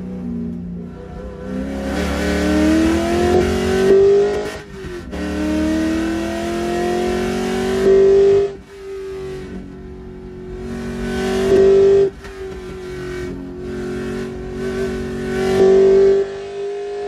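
Trans Am race car's engine heard from inside the cockpit, pulling hard on track. The revs climb steadily and then drop sharply about four times, loudest just before each drop.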